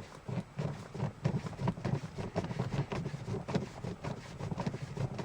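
Fabric rubbing and scuffing as a stock shift knob is twisted by hand through a shirt, a fast irregular run of scrapes and small knocks.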